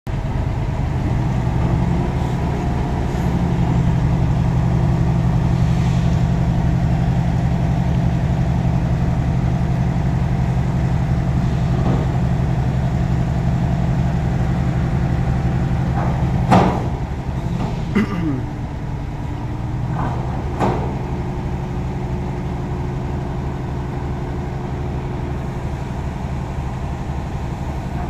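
Heavy diesel engine idling steadily. About two-thirds of the way through come a few sharp metallic clanks, the first the loudest, with a brief falling sound just after the second.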